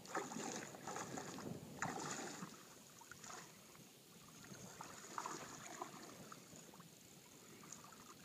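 Faint water lapping and splashing around a small boat, with a few short splashes in the first couple of seconds, then softer.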